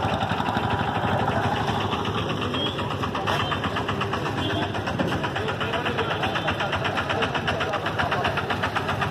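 Auto-rickshaw engine running close by with a rapid, even pulse as it moves slowly along.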